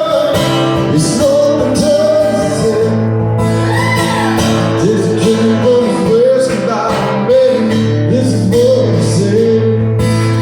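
Music: a song with a voice singing a melody over guitar accompaniment.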